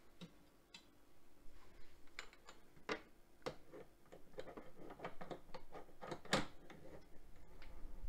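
Metal portafilter of a Zelmer ZCM7255 espresso machine being handled and fitted into the group head: a string of irregular clicks and knocks, the loudest a sharp clack about six seconds in.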